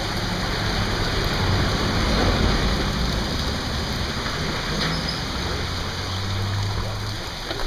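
Steady rushing noise with a low steady hum underneath; the hum stops shortly before the end.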